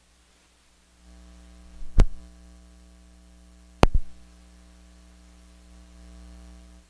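Electrical mains hum in the audio feed. It switches on suddenly with two loud pops about two seconds apart, then cuts off abruptly.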